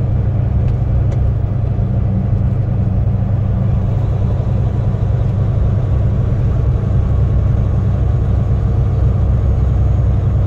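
Semi-truck's diesel engine and road noise heard from inside the cab while driving: a steady, loud low rumble that swells slightly in the second half.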